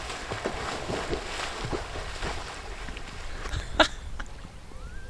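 Faint, regular splashing of a clothed man swimming away across a lake, a stroke a little under twice a second, over a low rumble. One short sharp sound stands out about four seconds in.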